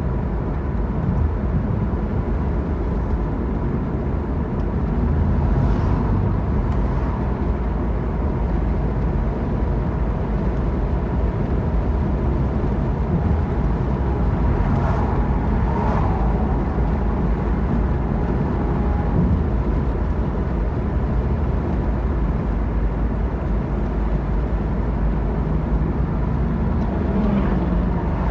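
Steady road and wind noise inside a moving car's cabin with a window partly down: an even low rumble with air rushing past.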